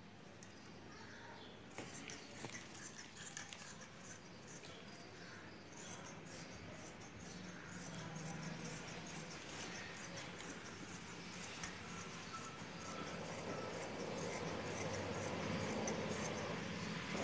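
Scissors snipping through dress fabric in a long run of quick cuts. A low hum builds underneath in the second half and grows louder toward the end.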